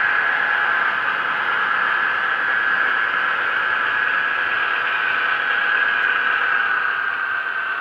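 Model freight train running: the Mehano Vossloh G2000 diesel locomotive's onboard sound module plays its engine sound through a small speaker, mixed with the wagons' wheels rolling on the track, a steady hissing rush that eases slightly near the end.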